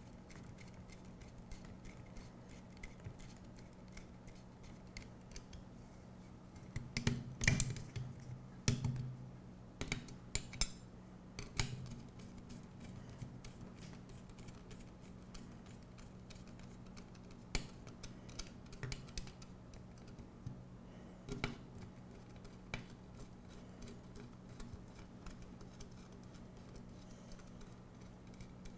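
Scattered light metallic clicks and clinks of aluminium C-channel and M3 hardware being handled while hex cap bolts are tightened into the channel end caps. The clinks bunch together about a quarter of the way in and again past the halfway point, over a steady low hum.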